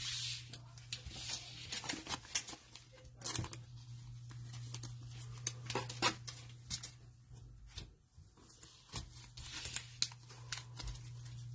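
Plastic cello-pack wrapping and trading cards being handled: crinkling and tearing of the wrapper with quick clicks and snaps of cards, over a steady low hum.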